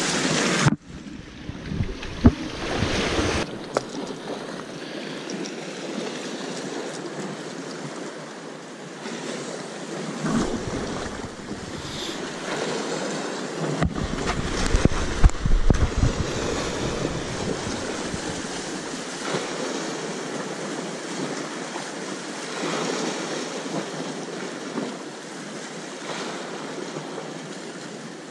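Sea surf washing steadily on the shore, with a few gusts of wind rumbling on the microphone.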